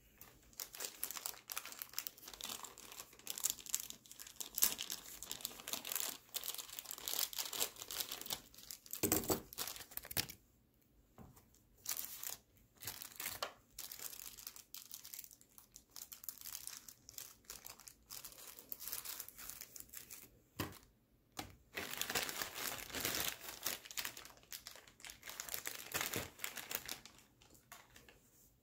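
Plastic parts bags crinkling and rustling as they are handled, in stretches of crackle with short lulls about ten and twenty-one seconds in.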